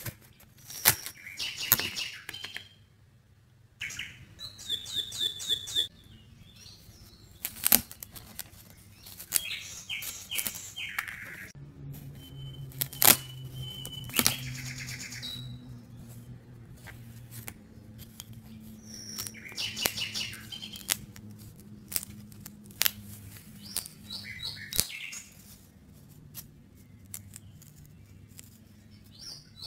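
Birds chirping in repeated short high bursts. Several sharp clicks and snaps of die-cut cardboard puzzle pieces being pressed out of their sheet and folded are the loudest sounds.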